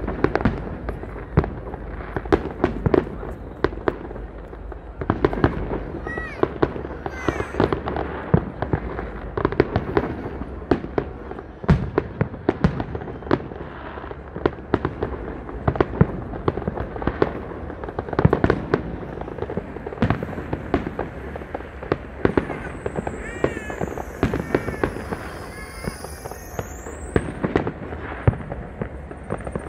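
Fireworks display: a continuous stream of overlapping bangs and crackles, several a second, from aerial shells bursting.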